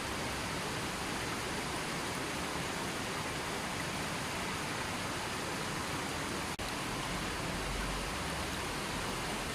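River water flowing in a steady, even rush. A momentary dropout breaks it about two-thirds of the way through.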